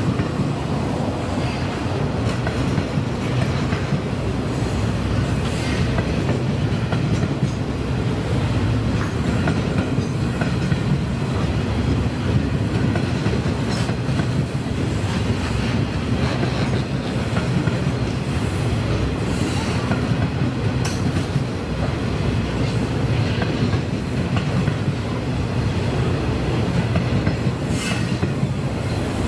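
Loaded container wagons of a freight train rolling past: a steady rumble of steel wheels on rail, with a few sharp clicks scattered through it.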